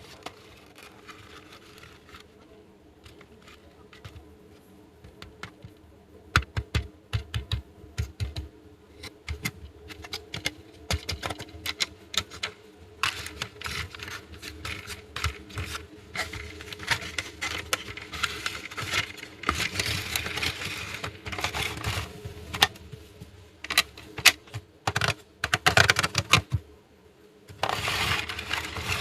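Small plastic miniature toy pieces clicking, tapping and rattling as they are handled and set down, in an irregular run of sharp clicks, with stretches of rustling.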